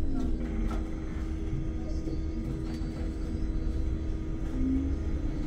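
Solaris Urbino 9 IV LE Electric battery bus under way, heard inside the cabin: a steady low road and tyre rumble with a steady hum from the bus.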